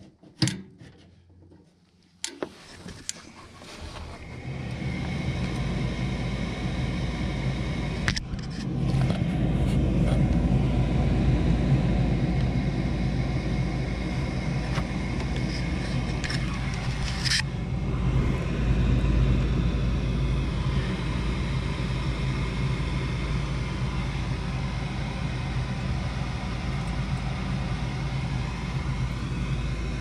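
Goodman gas furnace starting up after a few clicks and knocks: its draft inducer motor spins up about two seconds in and runs with a steady hum. The sound gets louder about eight seconds in and then holds steady.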